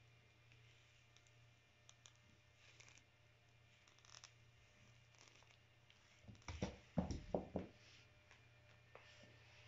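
Near silence in a small room, broken about two-thirds of the way through by a short run of soft, deep thumps and rustling.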